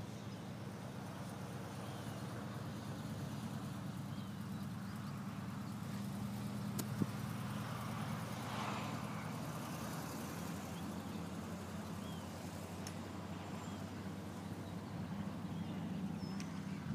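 Steady low engine hum, with one sharp click about seven seconds in.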